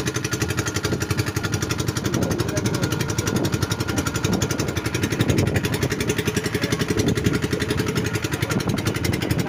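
Small wooden motorboat's engine running steadily, a fast, even putter of firing strokes.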